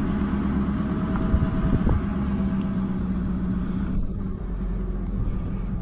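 Steady low rumble of a vehicle's engine and tyres, heard from inside the cabin while driving slowly; the higher hiss thins out about four seconds in.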